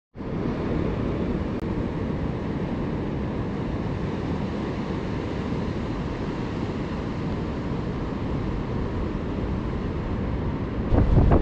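Steady whirring rush of a quadcopter drone's rotors, picked up by the camera it carries, mixed with wind. Near the end it gives way to louder wind buffeting the microphone.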